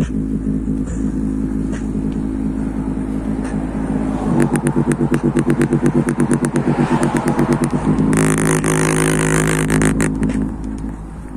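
JBL Charge 3 portable Bluetooth speaker playing bass-heavy electronic music loud, its passive radiator pumping hard. The bass is a thick, buzzy drone that becomes a fast, even pulsing about four seconds in, with a hissing wash of high sound for a couple of seconds near the end.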